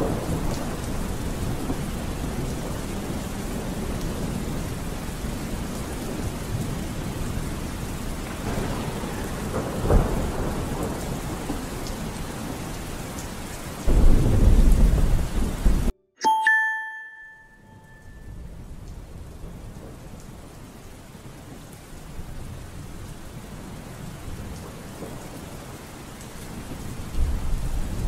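Steady rain with low rumbles of thunder. A little past halfway the sound cuts out abruptly and a short ringing tone sounds. The rain then fades back in, quieter, and swells again near the end.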